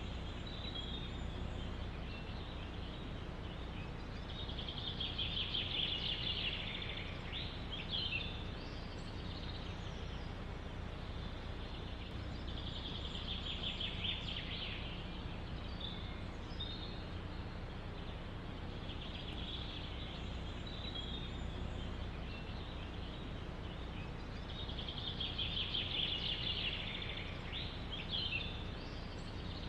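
A songbird singing a fast trilled phrase about every six to eight seconds, several phrases ending in a few sharp notes, over steady low wind noise.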